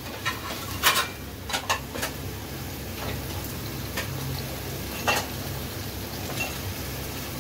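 Wooden spatula stirring thick saag frying in a metal pot, with a steady sizzle and a few sharp knocks of the spatula against the pot in the first two seconds and once more about five seconds in. Midway a stream of water is poured into the greens to thin them, as they are too thick.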